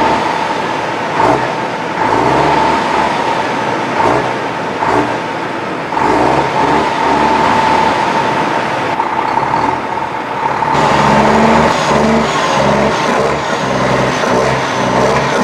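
Foden Alpha 420 truck's engine exhausting through straight pipes, revved in repeated blips that rise and fall in pitch. From about eleven seconds in, the engine runs harder and steadier.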